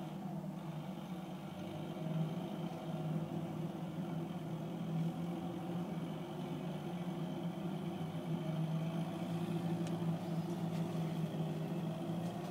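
MTZ tractor's diesel engine running steadily under load as it pushes a stuck semi-truck along an icy street; the note grows a little louder about two seconds in.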